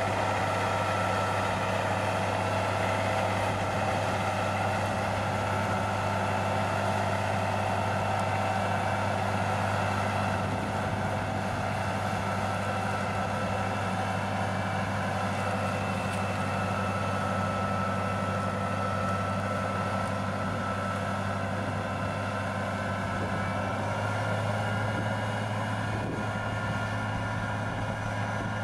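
Tractor engine running steadily, a constant low drone with a strong hum, slightly louder near the end.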